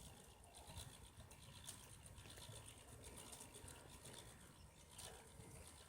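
Near silence: faint room tone with scattered faint ticks.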